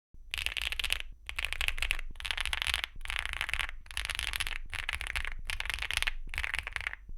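Mechanical keyboard with stock HMX x Akko linear switches and PBT Cherry-profile keycaps being row-smashed: hands mash whole rows of keys again and again, giving about eight bursts of dense clacking, each under a second with short breaks between.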